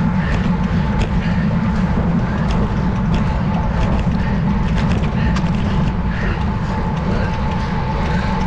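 Wind buffeting the microphone of a bicycle-mounted camera while riding at speed, with frequent sharp rattles and clicks from the bike jolting over rough, patched pavement.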